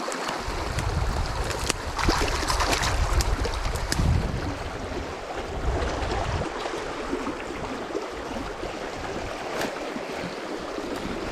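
Fast-flowing river water rushing and splashing, with a low rumble on the microphone for the first six seconds or so and a few sharper splashes about two to four seconds in.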